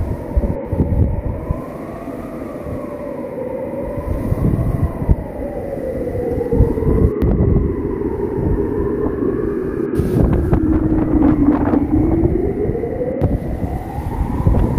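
Strong wind in a dust storm buffeting the microphone in gusts, with a wavering howl that slowly rises and falls in pitch over it.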